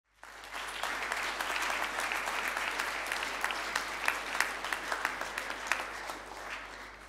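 Audience applauding, a dense patter of many hand claps that dies away near the end.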